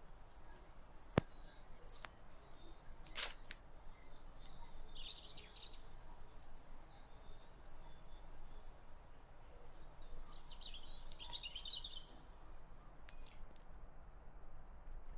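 Small birds chirping and twittering continuously in the background, with a sharp click about a second in and a couple of fainter ticks soon after.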